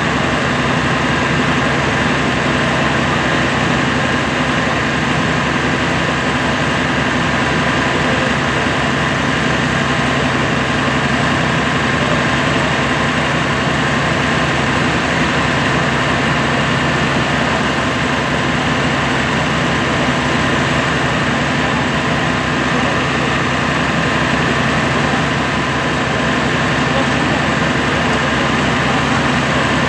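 Fire truck engine running steadily, a constant drone with a steady whine over it.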